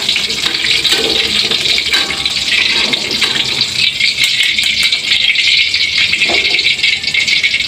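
Hot oil sizzling and crackling steadily in a wok as fried chilies, shallots and other sambal ingredients are stirred and scooped out with a metal spatula and wire strainer.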